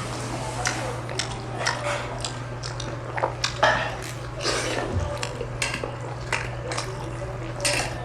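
Eating utensils clicking and scraping against dishes in a string of short, irregular clinks, over a steady low hum.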